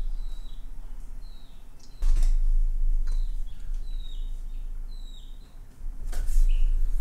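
A bird chirping repeatedly in the background, short high notes that each drop in pitch. Under it runs a low rumble, with a dull bump about two seconds in and another about six seconds in.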